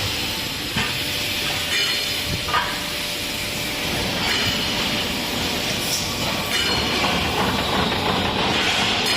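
Truck wheel rim production line machinery running: a steady mechanical din with hiss and a few short knocks.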